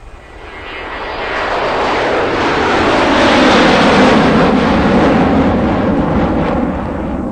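Jet engines of a twin-engine wide-body airliner during its landing roll: a loud, rushing engine noise that swells for the first three to four seconds after touchdown, then slowly eases off.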